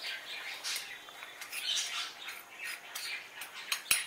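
A steel knife blade scraping tempered green chillies and spices out of a steel ladle into a bowl of whisked curd: irregular metal-on-metal scraping, with a few sharp clicks near the end.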